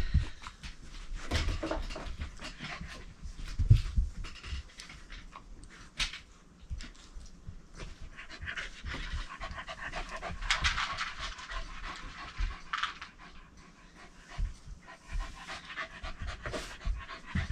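Shetland sheepdog panting fast and repeatedly, with a few dull thumps near the start and about four seconds in.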